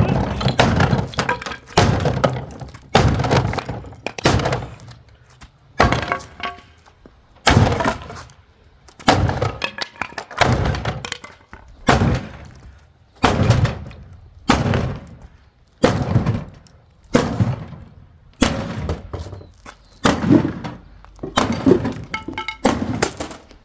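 A hand tool worked over a painted furniture surface in regular strokes, each starting sharply and fading, about one every second and a half, as a patina finish is repaired.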